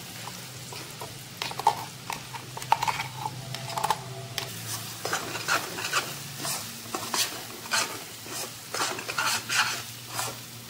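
Thick ground moong dal paste sizzling in hot oil in a non-stick kadhai while a metal spoon stirs and scrapes it around the pan in quick repeated strokes.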